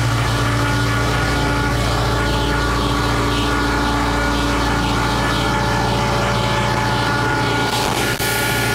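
Compressed air rushing steadily into a sandblast pot as it pressurises, over the steady drone of an old diesel air compressor's engine running under load.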